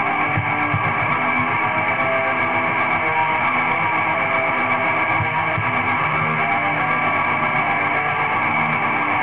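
Raw lo-fi black metal: a steady wall of distorted electric guitar with tremolo-picked distorted bass, in a dull-topped lo-fi mix.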